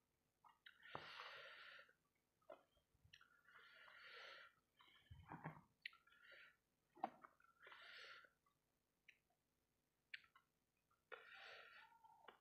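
Faint sounds of a person eating: four breaths through the nose about three seconds apart, with soft mouth clicks and chewing between them.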